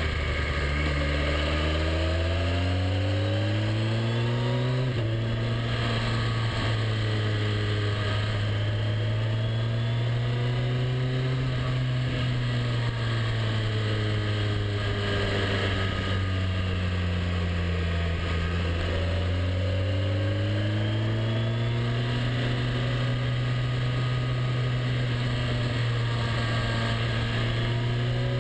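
Motorcycle engine heard from the rider's seat over a steady rush of wind and road noise. The engine note climbs, drops sharply once about five seconds in, rises slowly, falls away through the middle, and climbs again in the last third.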